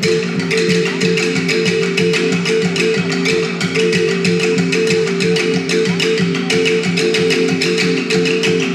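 Ensemble of Central Highlands Vietnamese folk instruments playing a fast, even, repeating pattern of short struck and plucked notes over a few repeated pitches, in a dry, woody tone.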